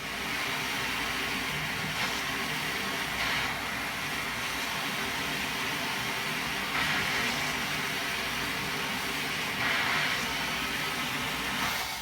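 Central vacuum system running, air rushing steadily into a VacPan toe-kick inlet, with several brief, hissier swells.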